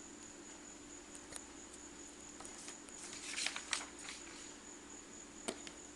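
Faint handling of small items: scattered light clicks and a short burst of rustling and clicking about three and a half seconds in. A steady high thin whine and a low hum run underneath.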